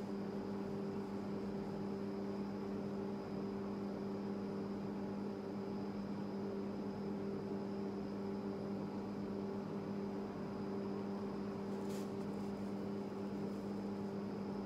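Steady electrical hum with a faint high whine above it, unchanging throughout, and one faint click near the end.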